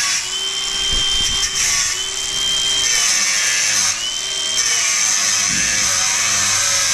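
Cordless angle grinder running steadily while grinding through the hinge pins of an aluminium three-step workbench. The dense grinding hiss carries a high whine that comes and goes several times.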